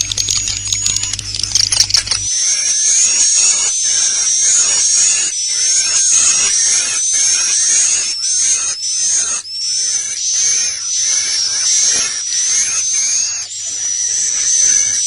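Recorded edible-nest swiftlet calls played as a roosting ('inap') lure for a swiftlet house. It opens with rapid high clicking over a thin whistle, then about two seconds in switches to dense, high twittering chirps repeating about twice a second.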